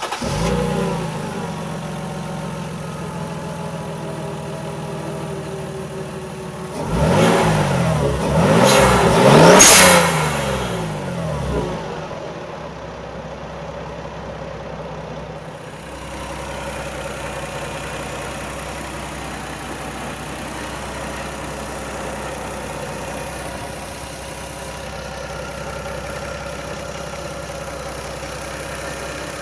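Toyota 2JZ-GTE twin-turbo 3.0-litre straight-six just started and running at a fast idle. It is revved three times in quick succession about seven to ten seconds in, the last rev the loudest. It then settles into a steady idle.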